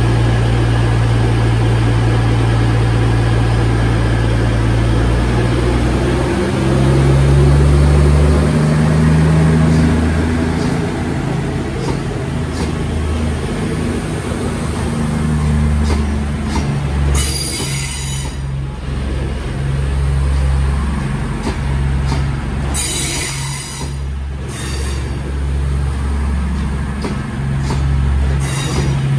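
CrossCountry Class 221 Voyager diesel-electric train pulling away, its underfloor Cummins diesel engines revving up a few seconds in and then running steadily as the coaches pass. Two short high-pitched wheel squeals cut in about two-thirds of the way through and again a few seconds later.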